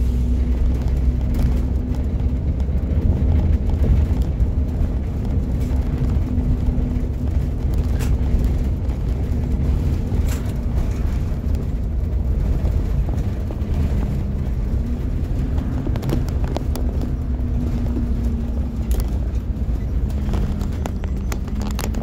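Empty 40-foot Blue Bird RE school bus under way, heard from the driver's seat: steady low rumble of its rear-mounted CNG engine together with road noise. A hum that rises and falls a little runs through it, and there are occasional clicks and rattles.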